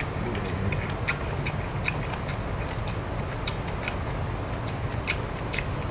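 A person chewing food, with irregular short wet clicks and smacks, about two to three a second, over a steady low hum.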